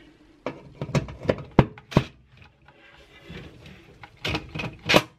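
Short, sharp clicks and knocks as a cordless impact driver works at a rusted-in screw on an oven's fan element cover, trying to break it loose. There are several strokes in the first two seconds, a quiet rustle, then a louder group near the end.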